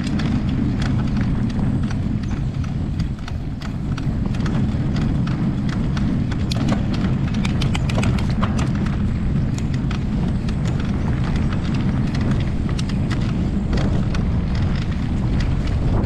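Polygon Siskiu T8 mountain bike pedaled over a grassy dirt trail, heard from a chest-mounted camera: a steady low rumble with frequent sharp clicks and rattles. Among them is the pedaling noise the rider suspects comes from a dirty bottom bracket.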